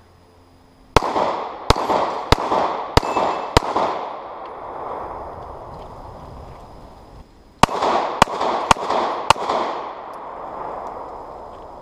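Glock 26 9mm pistol firing two strings of shots, about one to two a second: five shots starting about a second in, then four more near the end, each shot echoing and dying away.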